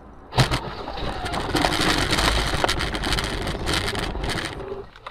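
A sharp bang about half a second in, then the steady rushing noise of a moving vehicle with wind on the microphone, which drops away near the end.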